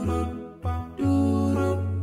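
Background music: an instrumental tune of held notes over a bass line, the notes changing about every half second.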